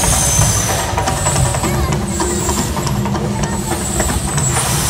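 The Mirage Volcano eruption show: a loud, continuous rumble and hiss from its eruption sound effects and gas-fed fire shooters, with music playing.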